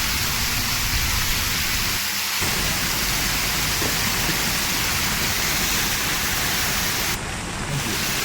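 Heavy tropical rain pouring steadily, a dense, loud hiss of downpour on surfaces.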